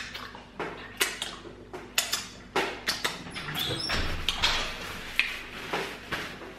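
Paper napkin crinkling and rustling as hands are wiped in it, a run of irregular sharp crackles that grows busier about halfway through.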